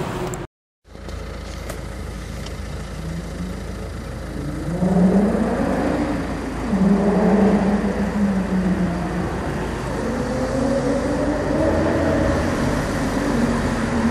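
Audi TT RS Roadster's turbocharged five-cylinder engine running and revving as the car approaches down a street, its pitch rising and falling several times. A brief dropout to silence comes about half a second in.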